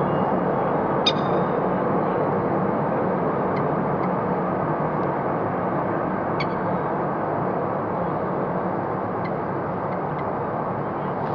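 Steady, even rumble of distant road traffic, with a few faint, brief high ticks scattered through it.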